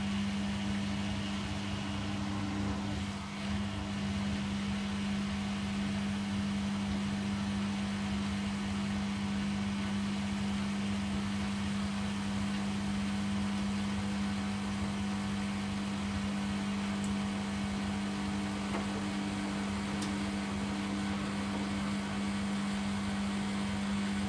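Bosch Logixx 8 washing machine running with a steady, even hum, its drain pump emptying the wash water.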